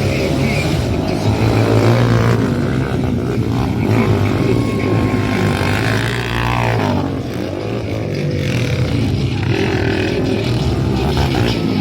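Motocross dirt bike engines running loud and steady, their pitch rising and falling as the riders work the throttle through the course.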